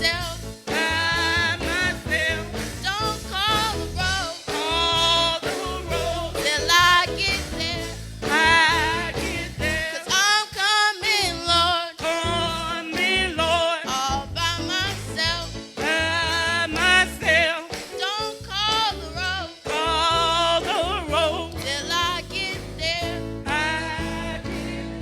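A gospel song: a single voice singing with wide vibrato over instrumental backing with a steady bass.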